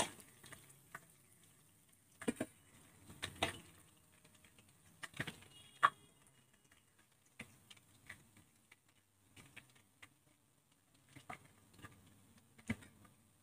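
Steel tongs clicking and tapping against the kadhai as fried fish steaks are lifted out of the hot oil one at a time: a dozen or so light, scattered clicks.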